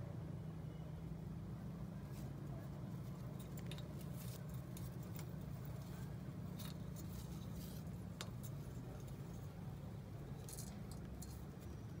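Scattered light clicks and scrapes, a young rose-ringed parakeet's beak and claws on a painted metal frame, over a steady low hum.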